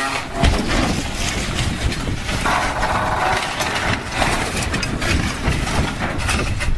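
Truck-mounted crane toppling off a quay into the sea: a heavy crash about half a second in, then splashing water, over a steady rumbling noise.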